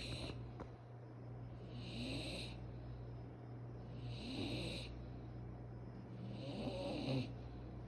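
Snoring in a steady rhythm, one snore about every two seconds, four in all.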